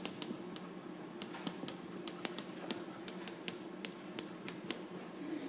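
Chalk tapping and clicking on a blackboard as it writes: a string of sharp, irregular taps, one to three a second, over a faint steady room hum.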